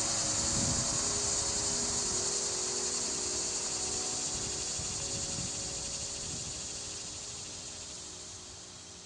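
Dense insect chorus, a high steady sound with a fine pulsing texture, over a few faint low sustained tones. The whole fades out gradually.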